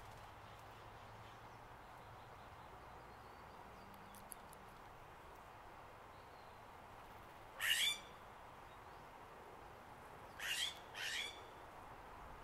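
Scrub jay giving three harsh calls: one about eight seconds in, then two in quick succession near the end.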